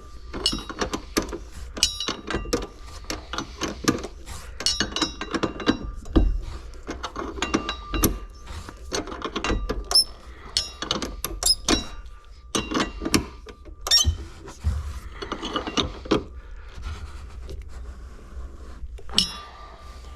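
A wrench and metal parts clicking and clinking as a nut is threaded back onto its stud and tightened, in a long run of irregular clicks and knocks with brief metallic rings.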